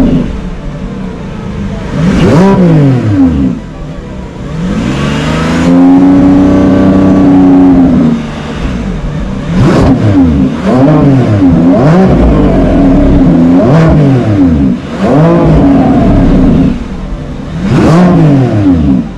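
Lamborghini Revuelto's V12 engine revved in a string of quick blips, each rising and falling back toward idle, with one longer rev held for about three seconds early on and a fast run of blips about once a second in the second half.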